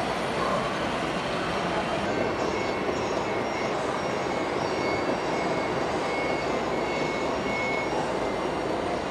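Steady background din of a busy exhibition hall, with a faint high-pitched tone coming and going from about two seconds in.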